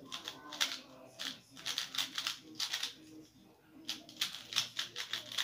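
A QiYi Valk 3 M magnetic 3x3 speedcube being turned fast during a speedsolve: quick runs of light plastic clicks and clacks, with a short pause a little after the middle.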